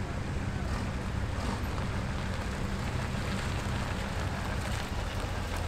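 Classic car engines running at low speed as cars move slowly around a car park: a steady low engine hum.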